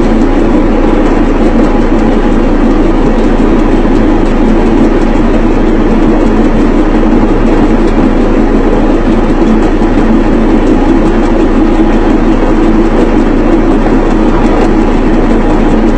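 Electric yam pounding machine running, a loud steady mechanical noise with a constant low hum beneath it.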